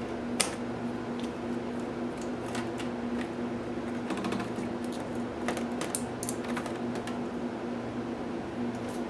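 Plastic clicks and snaps as a laptop's LCD bezel is pried loose from its clips, the sharpest about half a second in. A steady low hum runs underneath.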